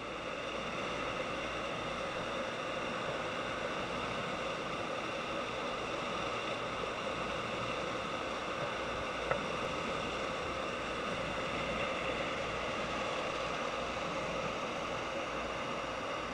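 Fishing boat's engine running steadily, a constant drone with a brief click about nine seconds in.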